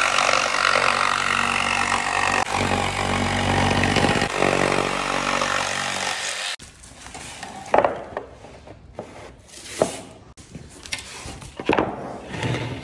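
Electric power saw cutting a parquet board, running steadily for about six and a half seconds and then stopping suddenly. Scattered wooden knocks and clicks follow as the pieces are handled.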